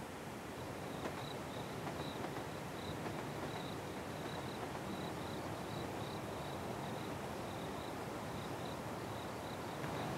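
A cricket chirping in short, high pulses, two or three a second, over a steady hiss of night-time outdoor ambience.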